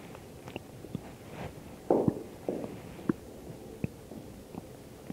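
A girl's stomach gurgling and rumbling, with one loud bubbly gurgle about two seconds in, a shorter one just after, and scattered small pops and squeaks.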